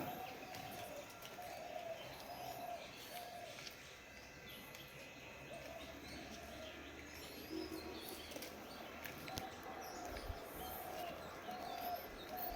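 Birds calling: two runs of short, low cooing notes, a few notes a second, with faint thin chirps higher up.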